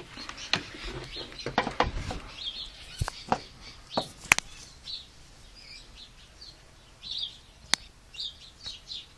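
Small birds chirping in the background, short high chirps scattered throughout, with several sharp clicks and knocks of handling.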